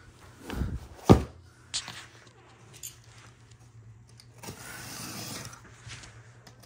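A cardboard parts box being handled and opened: a few knocks and taps, the loudest a little over a second in, then about a second of rustling and scraping.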